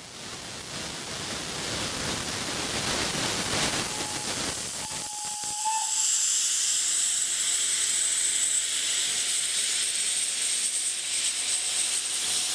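Steam locomotive SŽ 06-018 blowing steam out beneath it, around the cylinders and wheels: a continuous loud hiss that grows stronger and sharper about halfway through.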